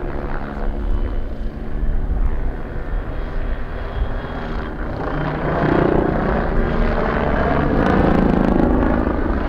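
MBB Bo 105 helicopter in flight, its rotor and twin turboshaft engines making a steady drone that grows louder about halfway through.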